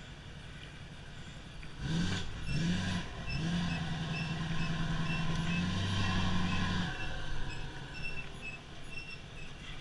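Pickup truck engine revving hard: two short rising revs about two seconds in, then held high for about three and a half seconds before it drops back. The truck is trying to pull up a slick, muddy boat ramp where it was slipping. A faint high beep repeats about every half second through most of the stretch.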